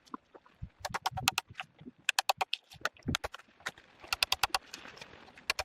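Bunches of rapid, sharp knocks on wood, each a quick run of several ticks, repeated four times, from hand-tool work as a log's saddle notch is finished.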